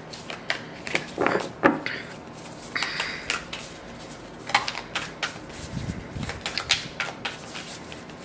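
A deck of oracle cards being shuffled by hand: a run of irregular soft clicks and flicks as the cards slide and tap against one another.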